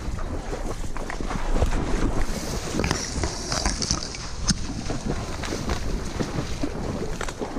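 Dry marsh reeds rustling and scraping against the camera, a dense crackling with many small snaps, mixed with wind on the microphone.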